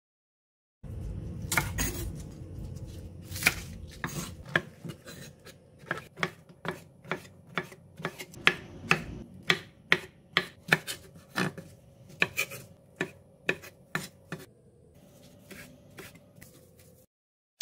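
Chef's knife chopping on a wooden cutting board, slicing king oyster mushrooms and then perilla leaves: a long run of sharp knocks, mostly about two a second, starting about a second in, over a faint steady hum.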